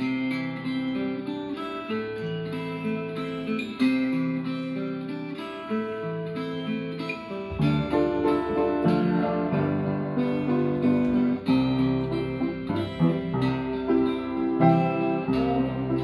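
Acoustic guitar playing a steady, rhythmic accompaniment; about seven and a half seconds in, an upright piano joins in, playing chords and melody along with the guitar.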